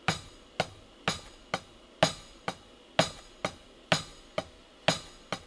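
Electronic drum kit hi-hat struck at a steady pace, about two hits a second, alternating the shoulder and the tip of the stick. Every second hit, the tip stroke, is a little bit softer.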